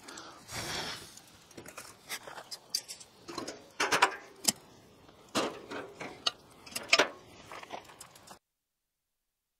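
Pieces of firewood knocking and clattering against each other as they are laid around the edge of a campfire: a run of irregular knocks, several of them sharp and loud. The sound stops abruptly about eight and a half seconds in.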